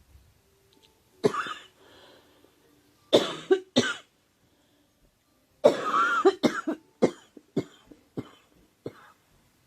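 A girl coughing in fits: a single cough, then two coughs close together, then a longer run of coughs about halfway through that tails off into a string of smaller, weaker coughs.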